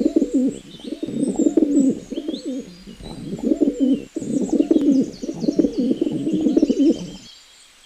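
A flock of feral pigeons cooing, many calls overlapping into a continuous burble, cutting off suddenly near the end. Faint high chirps of small birds sound over it.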